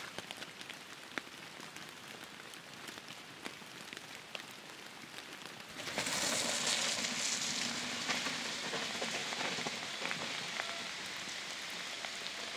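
A mountain bike's tyres rolling through wet mud as a rider passes on a descent: a spattering, rain-like hiss that comes in suddenly about halfway through and fades away over the next few seconds. Before it there is only a faint hiss with scattered ticks.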